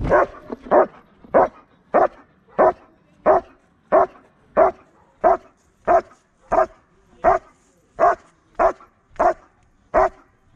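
German shepherd barking steadily and rhythmically at a helper in the blind, about one and a half barks a second, very close to the microphone: the bark-and-hold phase of protection work.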